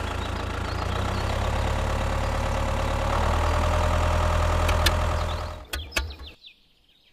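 Tractor engine running at a steady idle, its pitch even, fading out about five and a half seconds in, followed by a few clicks.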